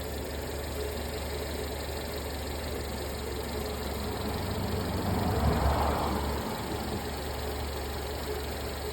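1994 Subaru Vivio's small four-cylinder engine idling steadily. A louder, rougher noise swells up and dies away a little past the middle.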